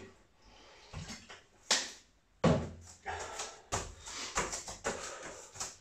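A single sharp knock nearly two seconds in, then a few seconds of irregular clattering and shuffling handling noises.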